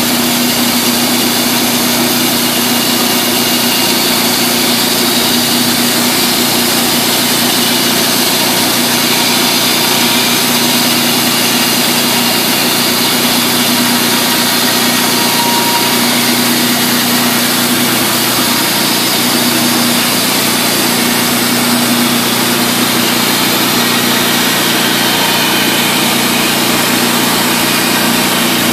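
The Honda GX390 single-cylinder engine powering a portable sawmill, running steadily with an even, unbroken drone.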